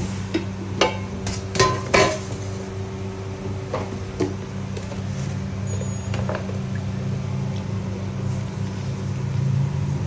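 Kitchen work sounds: several sharp knocks and clinks of utensils and dishes, some ringing briefly, in the first few seconds, over a steady low machine hum.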